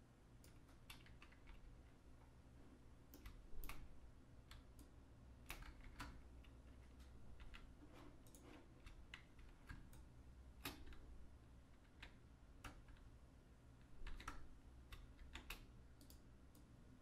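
Faint, irregular clicking of a computer keyboard and mouse, single keystrokes and small clusters of clicks, over a low steady hum.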